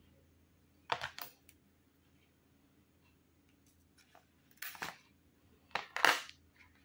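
Small metal scissors snipping through an orchid's flower spike: short, sharp cuts, two close together about a second in, one near five seconds and two more around six seconds, the last the loudest.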